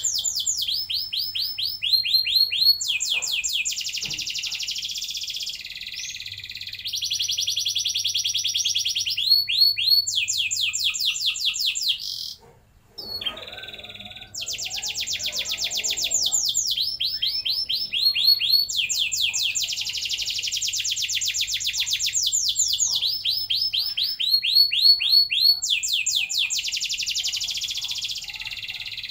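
Red canary singing a long rolling song: phrase after phrase of fast trills of repeated notes, with a short pause about twelve seconds in.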